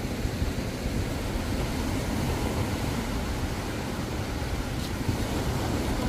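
Small ocean waves breaking and washing up a sandy beach, a steady hiss of surf over a gusty low rumble of wind on the microphone.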